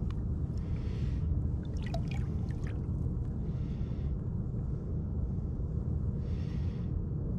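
Water splashing and sloshing in a few short bursts as a sturgeon is held by the tail at the surface beside the boat, over a steady low rumble.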